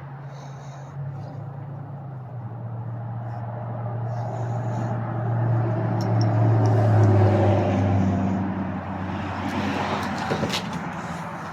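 A motor vehicle engine humming, growing louder to a peak about seven seconds in and then fading, like a vehicle passing close by. A few sharp clicks come near the end.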